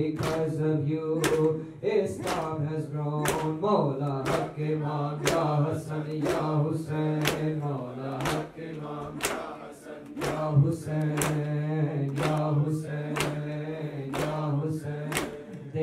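Voices chanting together over a low held tone, kept in time by a sharp beat that falls about once a second.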